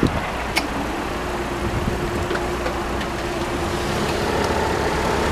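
Level crossing barriers being raised: a steady hum from the barrier machines, with a few sharp clicks, over road traffic noise.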